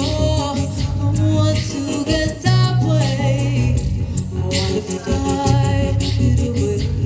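Live band playing a loud rock song, with a sung vocal line over bass, drums and cymbals.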